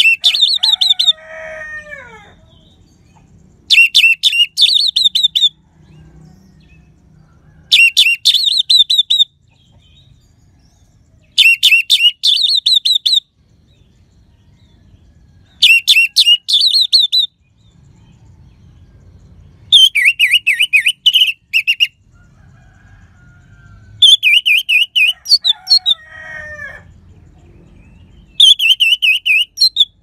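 Orange-headed thrush (anis merah) singing: loud phrases of rapid high notes, each about a second and a half long, repeated about every four seconds, eight times.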